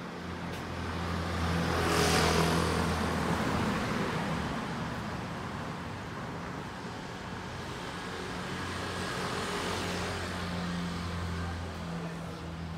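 Road traffic: a car passes close by about two seconds in and another more faintly around ten seconds, over a steady low engine hum.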